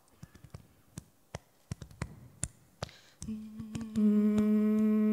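Scattered light taps and clicks, then about three seconds in a woman starts humming one steady low note, which swells louder a second later and holds.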